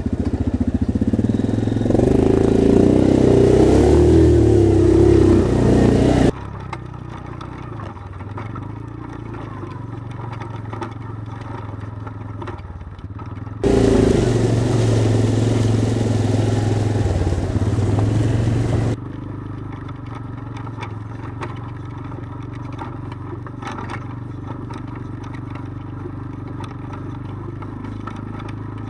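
ATV engine running steadily at low revs while riding a rocky trail, with light clatter from the machine over rocks. The sound is louder in two stretches, each ending abruptly.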